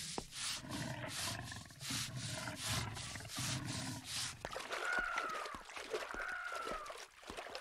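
Rhythmic scrubbing strokes of a long-handled brush on a wooden floor, about two a second, stopping a little past halfway. Then a high creak that rises and falls comes back about every second and a half.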